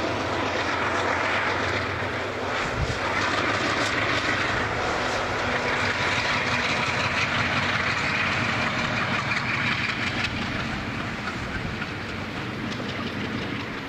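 Freight train passing close by: a diesel locomotive's low engine hum fades over the first few seconds, then boxcars roll past with steady wheel-on-rail noise.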